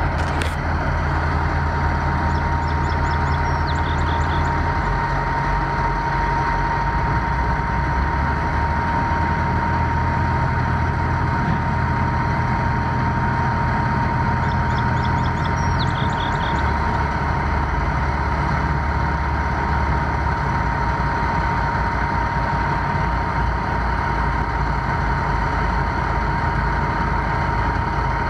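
Heavy diesel engine running at a steady idle, its low rumble shifting in pitch a few times, with a steady high whine over it. A bird chirps briefly twice.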